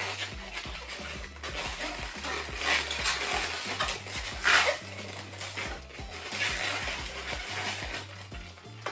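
A red 160 latex twisting balloon being twisted and folded into a small bow by hand, the latex rubbing and squeaking in irregular bursts, loudest about four and a half seconds in. Soft background music runs underneath.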